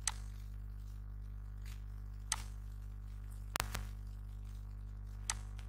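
Computer mouse clicking: single sharp clicks near the start and a little after two seconds, a quick double click past halfway and one more near the end, over a steady low electrical hum.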